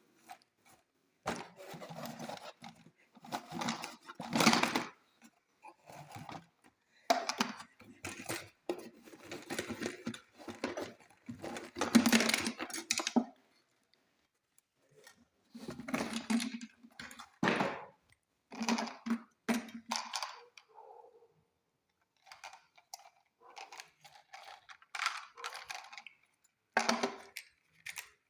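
Unboxing an RC toy car: the box and its packaging are handled and opened in irregular bursts of rustling and light knocks, with short pauses between.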